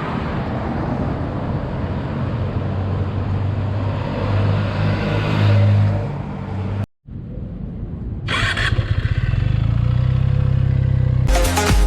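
Benelli 302S motorcycle's 300 cc parallel-twin engine running through its exhaust, growing louder around the middle as it revs. After an abrupt cut it runs again with a short sharp rise and then a steady pulsing beat. Electronic dance music comes in just before the end.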